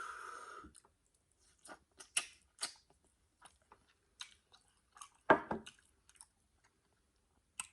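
Close-up eating sounds: a person chewing seafood, with scattered short, sharp clicks and crunches, the loudest about five seconds in.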